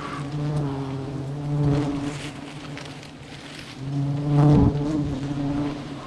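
Wild honeybees buzzing close around the microphone, stirred up by smoke as their hive is harvested. The drone rises and falls as bees pass, fading near the middle and loudest a little past halfway.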